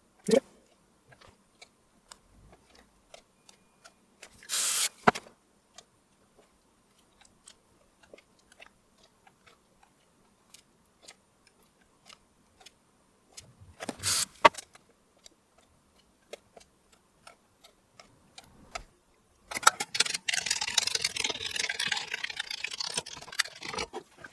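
Light, irregular clicking from the bare key switches of a BBC Micro keyboard, with two short hissing bursts and a few seconds of louder rustling hiss near the end.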